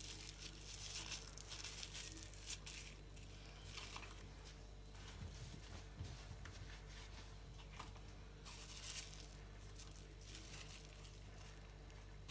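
Faint crinkling and rustling of a plastic piping bag of melted chocolate being handled, in several short bursts, over a low steady hum.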